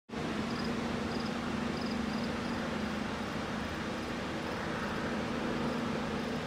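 Steady rush of water pouring over a dam spillway, with a low steady hum under it. A few faint high chirps come in the first half.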